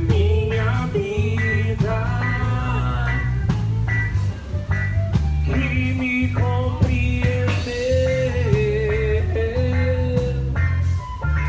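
Gospel song played over a sound system: a sung melody over heavy bass, guitar and a steady drum beat.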